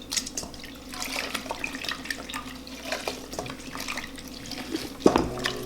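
Water running and splashing as a sponge is wetted for cleaning, with small irregular splashes and one louder knock about five seconds in.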